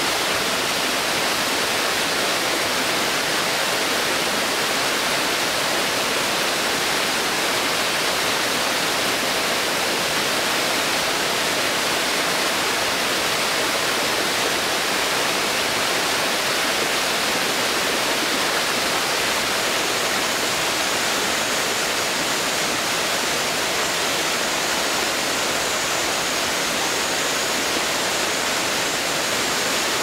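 Small waterfall pouring down a rock face into a pool: a steady rush of falling water.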